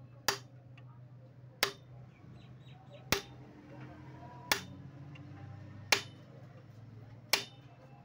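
Hand hammer tapping: six sharp, evenly spaced taps about a second and a half apart.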